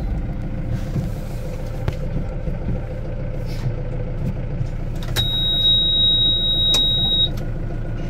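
Kubota tractor's diesel engine running steadily, heard from inside the cab. About five seconds in, a high steady electronic beep sounds for about two seconds, with a click at its start and another near its end.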